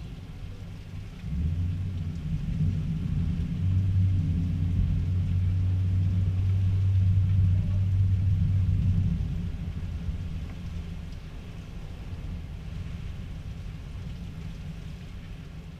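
Thunder rumbling: a deep, long roll that builds about a second in, holds for several seconds and slowly dies away after about nine seconds.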